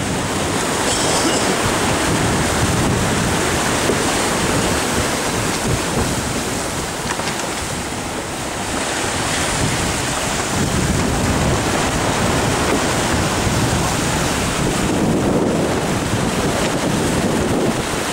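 Wind buffeting the microphone over water rushing and splashing past the hull of a 39-foot sailboat running downwind through breaking waves. The noise is loud and steady, easing briefly about halfway through.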